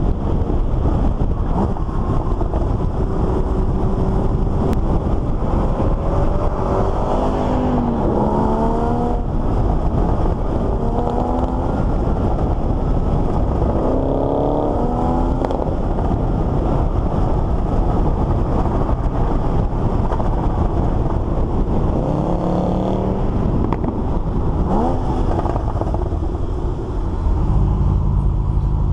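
Car engines and exhausts on the move with steady wind and road noise: several bursts of acceleration whose pitch climbs and then drops at each gear change. A deeper exhaust rumble swells near the end.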